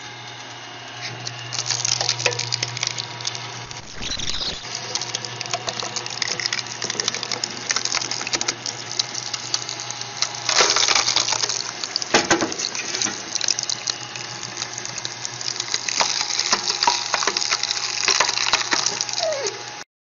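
Screw-type cone log splitter boring its spiral steel cone into a log: the drive motor hums steadily while the wood creaks, crackles and snaps as the log is forced apart, with the loudest run of cracking about halfway through.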